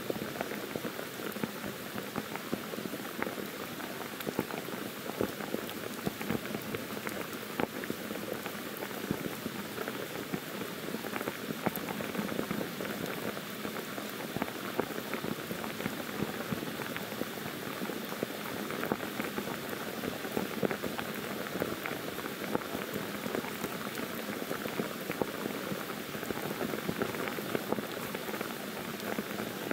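Monsoon rain pouring steadily on forest foliage and ground, a dense, even patter of countless raindrops.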